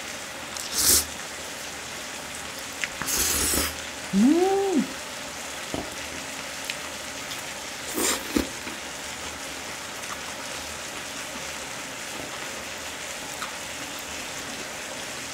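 Noodles slurped up in short loud bursts, about three times, with a brief rising-and-falling hummed "mm" about four seconds in. Under it, the steady faint sizzle of marinated duck ribs cooking on an electric grill pan.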